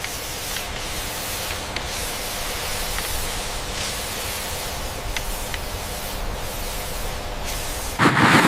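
A steady hissing, spray-like noise with a few faint ticks, swelling louder for the last half second.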